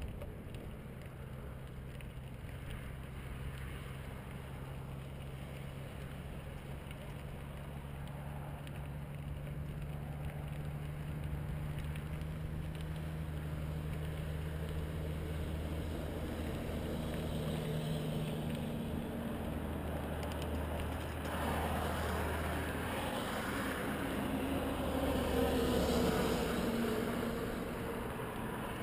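Steady low hum of road traffic on the highway alongside the trail. In the last third a louder vehicle passes, swelling to a peak and then fading.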